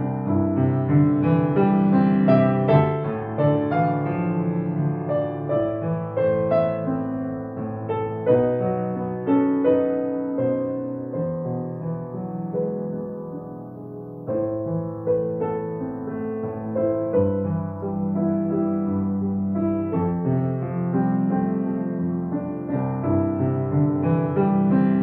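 Solo grand piano playing a melody over chords. It grows quieter about halfway through, then swells again.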